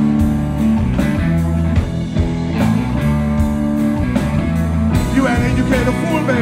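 Live band playing a blues song between sung lines: electric guitar, bass guitar and drum kit, with a steady drum beat under sustained bass notes. Recorded on a cellphone from the audience.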